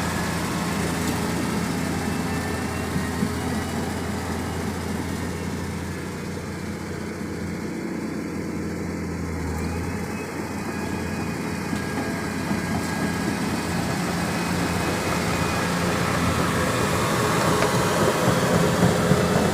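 Volvo EC330B LC excavator's diesel engine running steadily as the machine works, easing slightly around the middle and rising again toward the end.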